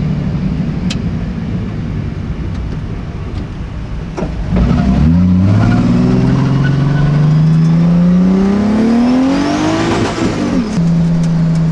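Race car engine heard from inside the cabin, cruising steadily, then put under hard throttle at about four and a half seconds: it gets louder and its pitch rises smoothly for about five seconds as it pulls through a gear. Near the end the pitch drops back and it settles into a steady cruise again.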